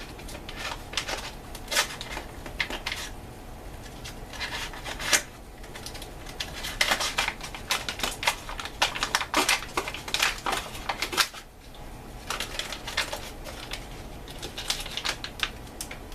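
Plastic MRE wheat snack bread pouch crinkling and crackling as it is worked open with a knife, in irregular bunches of sharp crackles and rustles.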